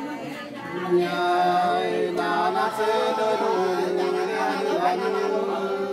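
Unaccompanied sli, the Nùng antiphonal folk song: a pair of voices singing long, slow held tones in two-part harmony. It grows louder about a second in.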